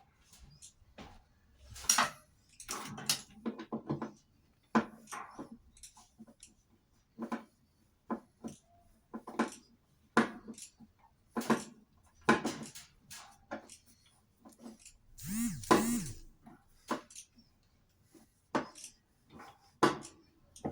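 Metal hand tools and washing-machine parts clinking and knocking at irregular intervals. About three-quarters through, a short voice-like sound rises and falls twice in pitch.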